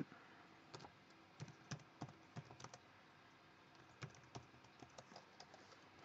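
Faint keystrokes on a computer keyboard, short clicks typing a short phrase in two runs with a pause of about a second between them.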